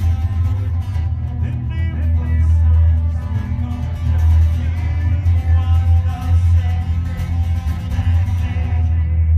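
Loud live experimental music: a steady low drone under layered sustained tones and a gritty, noisy upper texture. The high end fades away near the end.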